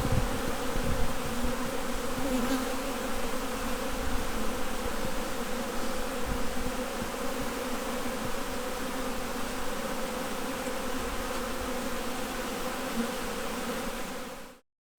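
Steady hum of a honey bee colony in an open hive, with a few low knocks in the first seconds. The hum cuts off suddenly just before the end.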